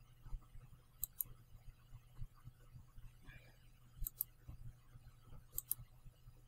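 Computer mouse buttons clicking: three quick pairs of clicks spread over a few seconds, over a faint low hum.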